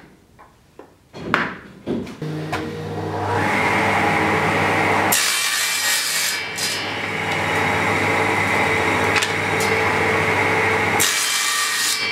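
A few sharp hammer knocks, then a table saw on a combination woodworking machine starts up and runs up to speed. About five seconds in, the blade rips lengthwise through a strip of wood with a loud, steady cutting noise that dips briefly near the end.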